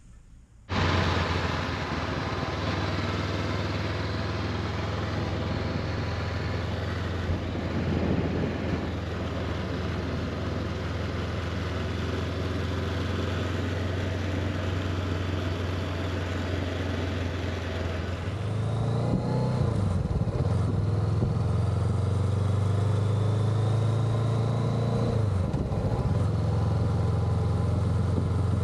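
Honda CB500X's parallel-twin engine running while riding, with steady wind noise. The sound starts abruptly just under a second in, and later the engine note rises and falls twice as the speed changes.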